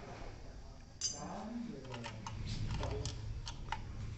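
Light metal clicks and taps, several scattered ticks in the second half, as a nut is put on and tightened to fix a replacement refrigerator thermostat in its housing.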